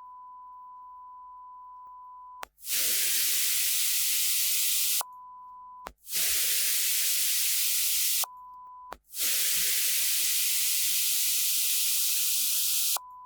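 A steady sine-wave test tone alternates with much louder white noise, three times. The noise cuts in suddenly about two and a half seconds in, again near six seconds and again near nine, and the tone drops out each time. This is a sidechain compressor ducking: the white noise is fully ducked while the sine track plays and returns at full level when the sine track is muted.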